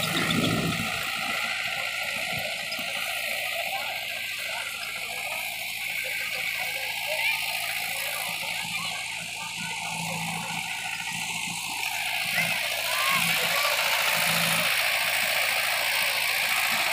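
Tractor diesel engine running steadily while its rear rotary tiller churns the soil. The sound grows a little louder about twelve seconds in.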